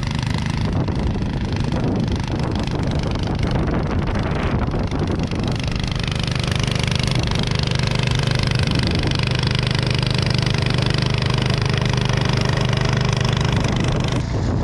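Snowblower engine running continuously under load while clearing heavy, wet snow, its note rougher at first and settling into a steady drone about six seconds in.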